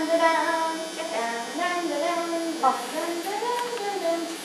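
A girl's voice singing a wordless tune in a string of held notes.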